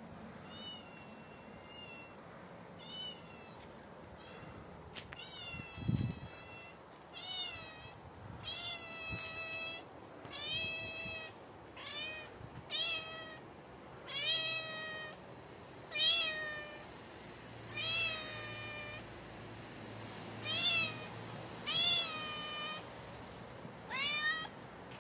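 Tabby cat meowing over and over, about a dozen and a half separate meows roughly a second or so apart, each bending up then down in pitch. A low thump about six seconds in.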